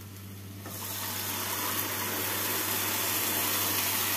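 Boiled chickpeas and their cooking water poured into hot frying masala in a kadai, setting off a loud, steady sizzle. It starts about a second in and swells quickly.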